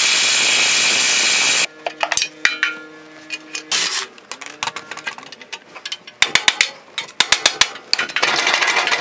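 Craftsman cordless impact driver hammering old bumper bolts out of a Jeep's rear frame rail: a loud, even burst at the start and another near the end. Between them are a short steady motor hum and a quick run of sharp metallic clicks from the tools and loosened hardware.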